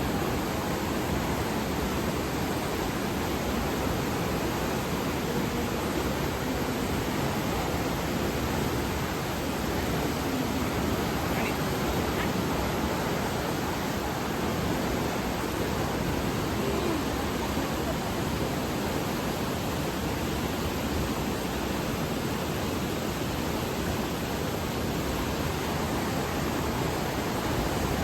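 Water of Fukiware Falls on the Katashina River rushing steadily: an even, unbroken noise of falling and flowing water.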